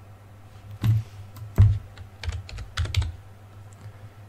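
Computer keyboard keys being tapped in an irregular run of about ten keystrokes, the loudest about a second and a half in, over a steady low electrical hum.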